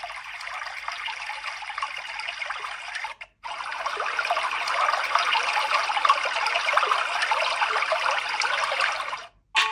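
Demo audio played through the TCL 40 NXTPAPER's stereo speakers: a steady, water-like noise with no bass. It drops out briefly about three seconds in, comes back louder, and stops just before the end.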